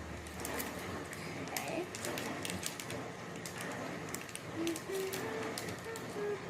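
Small plastic Lego pieces clicking and rattling as they are handled and sorted, in many quick irregular ticks. Near the end, a bird cooing in the background in a few short low notes.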